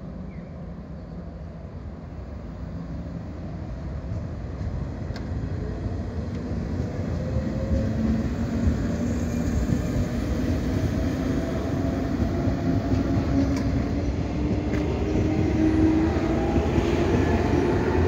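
115-series electric multiple unit pulling away from a station: its traction motors give a whine that climbs slowly in pitch as the train gathers speed, over the rumble of wheels on rails. The sound grows steadily louder as the cars pass close by.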